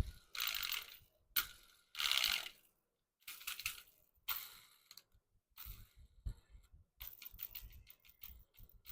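Small plastic toys being handled: a run of short rustling, clicking and clattering bursts, about a dozen, with brief silent gaps between them and a quick flurry of clicks in the last couple of seconds.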